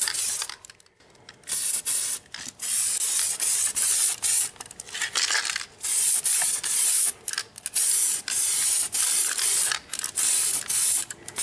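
DuraCoat aerosol spray can hissing in a string of short spray passes with brief gaps between them, starting about a second and a half in, laying on the third coat of gun finish.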